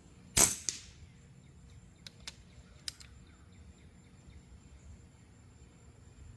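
Air rifle firing a pellet about half a second in: a sharp report with a short decay and a second crack a quarter second after it, followed by a few light clicks. A faint steady high insect drone runs underneath.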